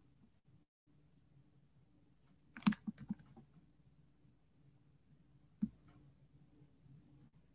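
A short flurry of computer keyboard clicks, then a single click about three seconds later, over a faint low hum.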